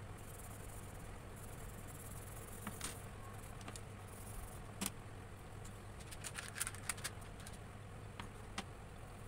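Oil pastels and a tissue scratching and tapping on paper, with several short sharp clicks about five seconds in and a cluster between six and seven seconds, over a steady low hum and a high hiss.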